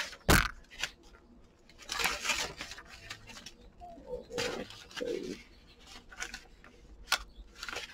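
Sheets of sublimation transfer paper rustling and crinkling in short bursts as they are peeled off a satin stole and handled. A sharp click comes just after the start and another near the end.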